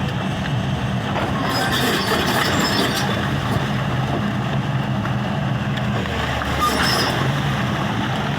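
Excavator's diesel engine running steadily under load, with two brief bursts of high-pitched metallic scraping or squealing.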